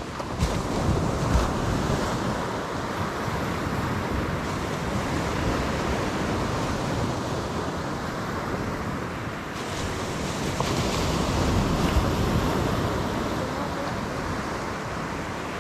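Ocean surf washing onto a sandy beach, swelling and easing as waves come in, with wind buffeting the microphone.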